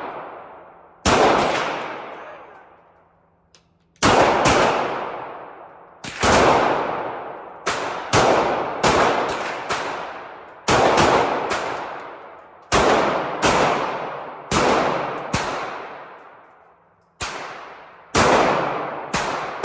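Gunshots fired one at a time at an uneven pace, about twenty in all, some in quick pairs and short strings, each shot followed by a long echoing tail.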